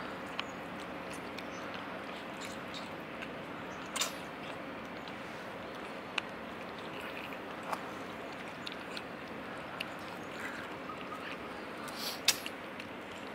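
Cats eating dry kibble from a plastic tray: scattered sharp crunches and clicks, the loudest near the end, over a steady outdoor background hiss.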